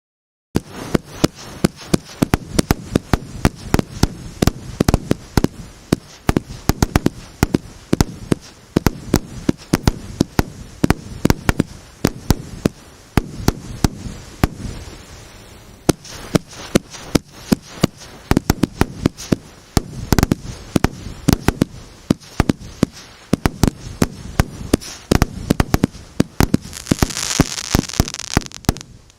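A 1.2-inch multi-shot fireworks cake firing shot after shot: rapid sharp launches and bursts, often several a second, with a brief hissing crackle near the end.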